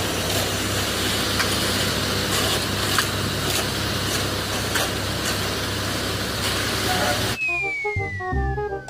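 A vehicle running: a steady rumble and hiss with a low hum and a few light clicks. About seven seconds in it cuts off suddenly, replaced by plinking notes and a long falling whistle-like glide.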